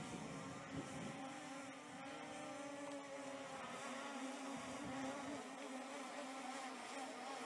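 C-Fly Faith 2 Pro quadcopter drone flying, its four brushless motors and propellers giving a steady buzzing hum whose pitch wavers slightly.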